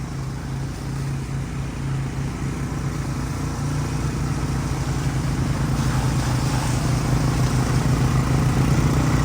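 250cc four-wheeler engine running under way, a steady low drone that grows louder from about three and a half seconds in.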